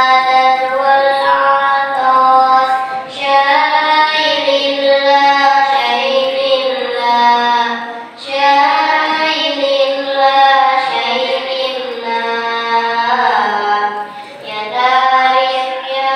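A child's solo voice singing shalawat unaccompanied, in long melismatic phrases with held, wavering notes. There is a short breath between phrases about every five seconds.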